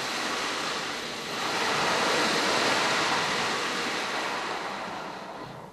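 Automatic car wash spraying water onto the car, a steady rushing hiss heard from inside the cabin. It swells about a second and a half in, slowly fades, then drops away near the end.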